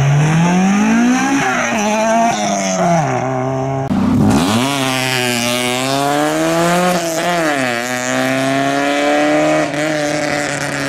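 Two Honda Civic four-cylinder engines accelerating hard one after the other: the first revs up to a high pitch and drops back twice at gear changes, and after a sudden cut about four seconds in a second Civic pulls away, its note climbing and dipping at a gear change about seven seconds in.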